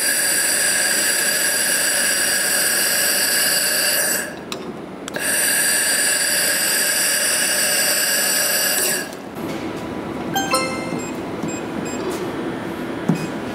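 Handheld laser welder's scanning head in laser-cleaning mode, giving a steady high-pitched whine with a buzzing edge as it cleans the oxidised discoloration off a weld. It runs in two passes of about four seconds each with a short break between, then stops. A quieter stretch follows with a brief tone.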